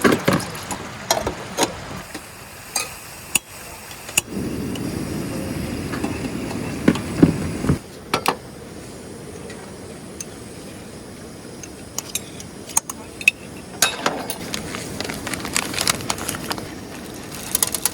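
Scattered clinks and knocks of camp gear being handled, over a steady background noise. A louder, even stretch of noise runs from about four seconds in and cuts off about eight seconds in.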